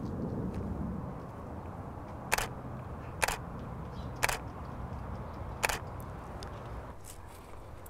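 Canon EOS 60D DSLR shutter firing single frames: four crisp clicks about a second apart, a fainter one near the end, over a low outdoor background.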